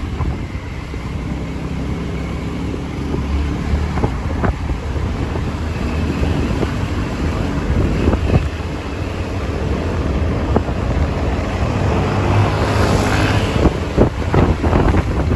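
Wind buffeting the microphone over the low, steady rumble of a moving road vehicle, with a few short knocks.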